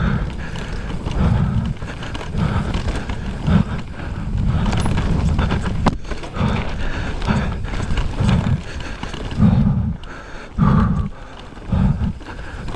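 Mountain bike descending a downhill race trail at speed: tyres on dirt and the bike rattling over rough ground, with low rushing bursts about once a second and a sharp click about six seconds in.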